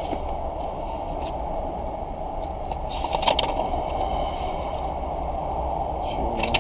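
Steady low rumble of vehicle noise: a stopped car's engine idling with traffic going by, with a few faint clicks and rustles about three seconds in.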